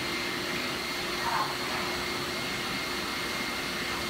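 Hyla water-filter canister vacuum cleaner running steadily, its hose and brush sucking dust off a projector screen. It makes an even rush of air with a steady whine.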